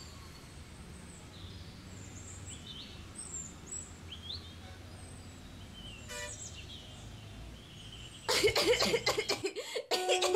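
Quiet room tone with a low hum and faint, scattered bird chirps from outside, and one short click about six seconds in. About eight seconds in a much louder, dense stretch of sound breaks in, and background music is playing by the end.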